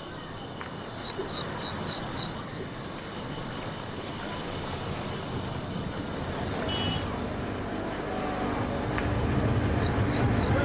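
Night ambience: a steady high insect drone with a run of five quick, loud, high chirps about a second in. A low rumble of street traffic grows over the second half.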